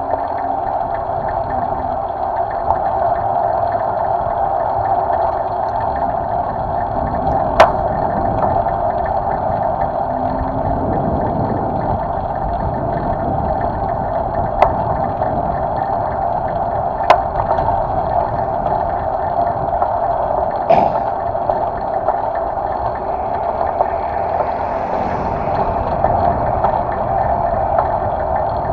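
Steady, muffled rush of wind and tyre noise from a bicycle riding along a paved street, heard from a handlebar-mounted camera, with four short sharp clicks scattered through it.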